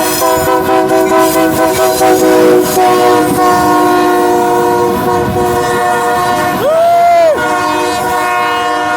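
Locomotive's multi-chime air horn held in one long blast, its chord dropping slightly in pitch about three seconds in, with a short tone that rises and falls near the end.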